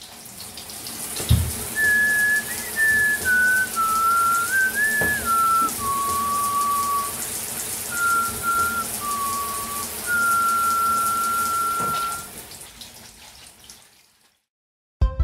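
A person whistling a slow, simple tune in held notes over a steady rushing hiss like running water. The whistling stops about twelve seconds in and the hiss fades out.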